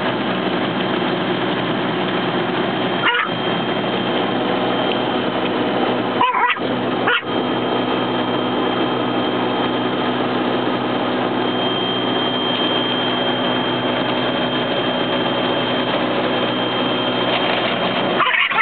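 A frightened Yorkshire terrier barking and yipping inside a car, over the steady noise of an automatic car wash's brushes and machinery heard through the car body.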